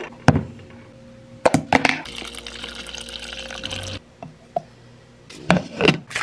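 Plastic shaker bottle knocked down on a countertop, then water running into it for about two seconds and cutting off, followed by a scoop and clatter as pre-workout powder goes in.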